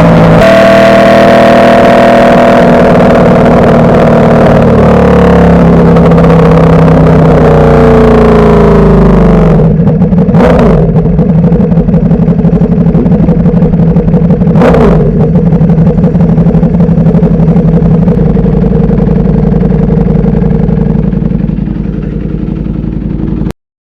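Ducati Panigale V4 superbike engine winding down as the bike slows, its pitch falling over about ten seconds, then settling into a steady idle with two short hissing bursts. The sound fades a little and then cuts off suddenly near the end.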